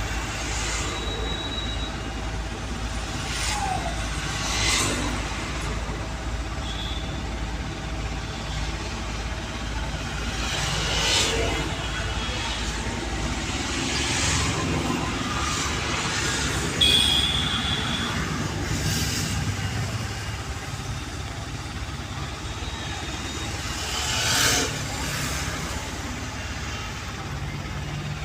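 Mahindra diesel engine running steadily at a standstill during a forced DPF regeneration, burning off a very high soot load built up after the urea ran out. Its low drone changes about halfway through. Other traffic passes now and then.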